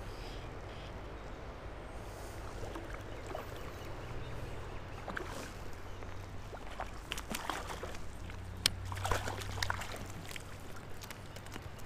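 Stream water running steadily at the bank, with a cluster of short splashes and knocks between about seven and ten seconds in, as a hooked trout is brought to hand in the shallows.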